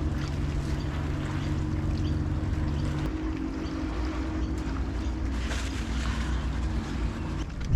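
A boat engine hums steadily under wind noise on the microphone; one of its low tones drops out about three seconds in.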